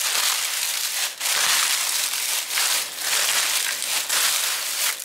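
A hand in a plastic glove tossing and squeezing a rice-paper salad of shredded rice paper and green mango in a basin: crinkly, crunchy rustling that swells and dips with each mixing stroke, about one stroke every second.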